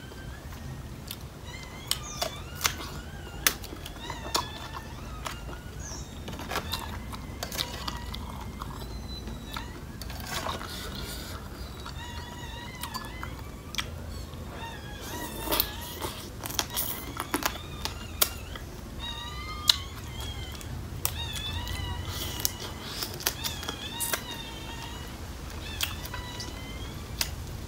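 Close-miked chewing and crunching of crab, with sharp cracks of shell between the teeth, over repeated short, high, wavering animal calls.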